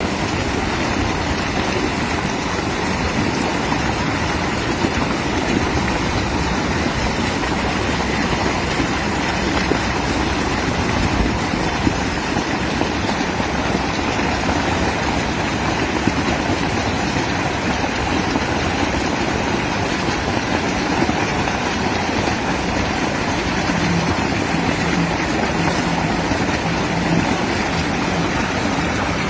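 Mountain river rushing, a steady loud wash of water noise.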